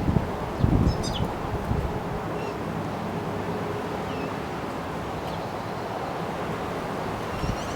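Wind gusting on the microphone and rushing steadily through the backyard trees, with a few short, scattered chirps from small feeding birds.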